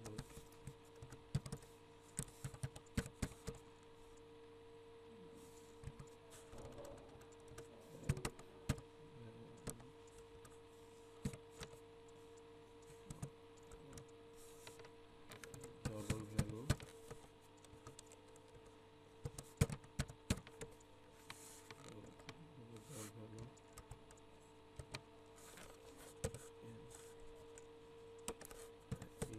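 Computer keyboard being typed on: irregular runs of key clicks with pauses between them, over a steady low electrical hum.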